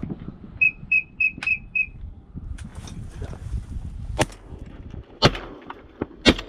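A whistle blown in five short, high toots about a second in, then shotgun shots: a lighter crack past four seconds, then two loud cracks about a second apart near the end.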